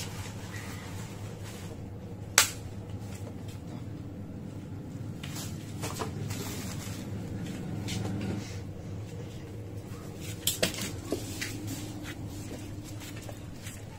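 A few sharp knocks and clatters of small objects being handled, the loudest about two and a half seconds in and a short cluster near the end, over a steady low hum.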